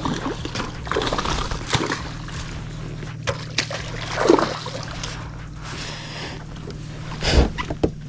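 A hooked tarpon thrashing at the surface beside a small boat, the water sloshing with a run of sharp splashes, the loudest about four seconds in and again near the end.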